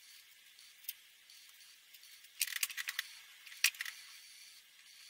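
Faint hiss of a marker tip moving over paper, with sharp plastic clicks of marker pens and caps being handled as one marker is swapped for another: a quick cluster about two and a half seconds in, then a single louder click about a second later.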